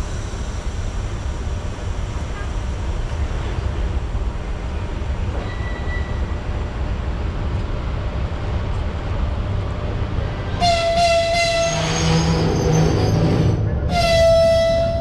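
Electric locomotive running in slowly with a steady low rumble, then sounding its horn: a high blast that starts in short stutters about two thirds of the way through, a lower tone, and a second high blast near the end.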